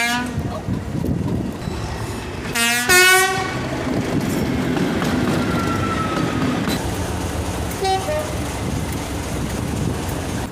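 Heritage diesel locomotive two-tone horns sounding over a steady diesel engine rumble. There is a short blast right at the start, a longer blast about three seconds in that steps from one tone to the other, and a brief high-then-low toot about eight seconds in.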